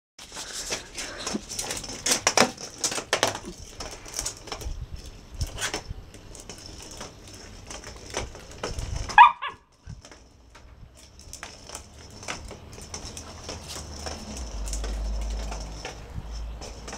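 A small dog gives one short, rising yelp about nine seconds in, the loudest sound. Before it comes a run of sharp clicks and knocks.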